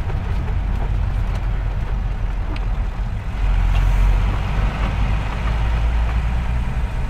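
Cab noise of a Toyota Land Cruiser HJ47 Troop Carrier on the move: a steady engine and road rumble that swells briefly about halfway through.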